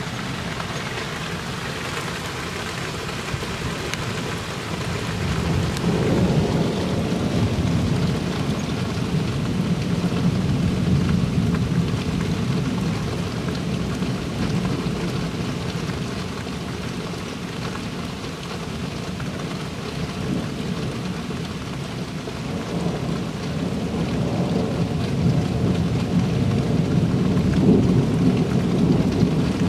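Steady rain falling through a thunderstorm, with long low rolls of thunder that swell about six seconds in and again near the end.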